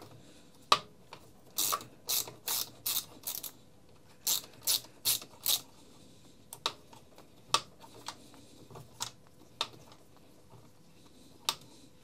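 Small hand ratchet with a hex bit clicking as it turns a trimmer guard screw: two quick runs of clicks, about three a second, then a few scattered clicks. The screw no longer tightens because its thread in the housing is stripped.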